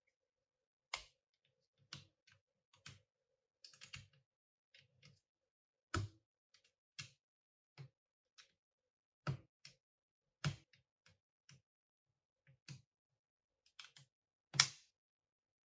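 Plastic building bricks being handled and pressed together in gloved hands: scattered light clicks and taps at an uneven pace, with the sharpest snap near the end.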